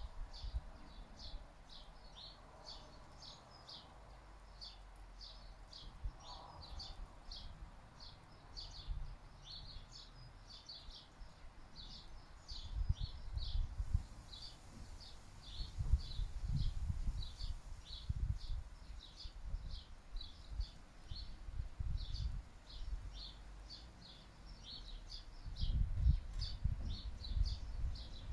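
Breeze buffeting the microphone in low rumbling gusts, strongest in spells in the middle and near the end. Under it runs an unbroken series of short, high chirps, about two to three a second.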